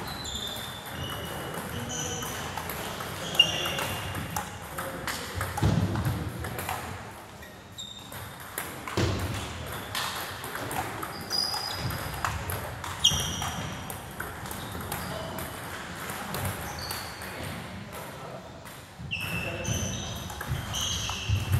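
Table tennis balls pinging off bats and tables at an irregular pace, with sharp clicks about 3 and 13 seconds in, over background chatter.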